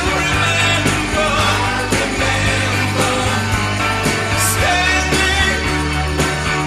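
Rock music track with a steady beat.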